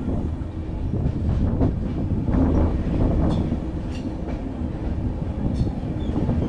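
Passenger train running along the track: a steady low rumble with a few light clicks from the wheels and rails.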